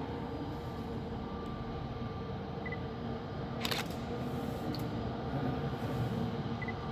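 Steady drone of a jet airliner running on the ground, a constant hum with a low rumble underneath. There is a single sharp click about halfway through.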